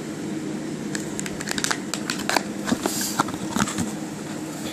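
Crinkling and crackling of a mailed package being opened and its contents handled: a string of sharp clicks and rustles starting about a second in, over a steady low hum.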